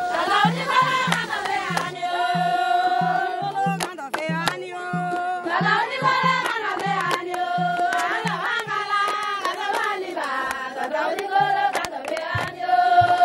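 Background music with a steady low drum beat, about three beats a second, and a melody over it; the drum drops out for a few seconds after the middle and comes back near the end.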